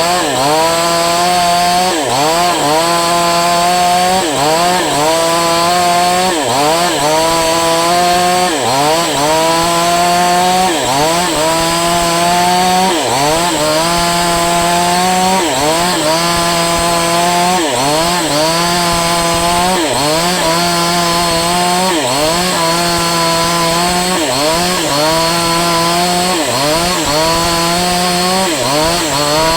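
Falcon Evo 9000 two-stroke chainsaw running hard. Its engine note dips sharply and climbs back again and again, a little more than once a second.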